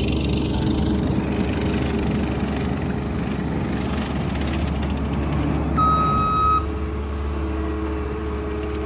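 ASV RT-120 tracked skid steer's diesel engine running steadily, with a single short high beep from the machine about two-thirds of the way through.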